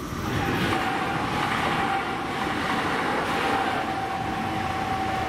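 Passenger train running through a level crossing: the loud, even rumble of wheels on rails, with a steady whine held throughout.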